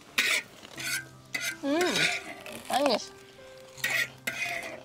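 Metal spatula scraping against a large iron wok in a series of short scrapes, scooping out scrambled egg. Two short calls that rise and fall in pitch come in near the middle.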